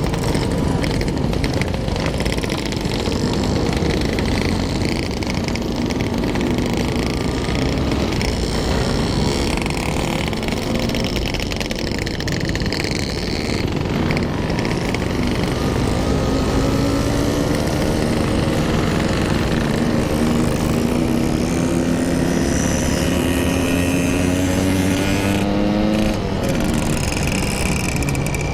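Yamaha RX-King two-stroke single-cylinder motorcycle engine running under way, over a steady rush of road noise. In the second half its note climbs slowly for about ten seconds as the bike accelerates.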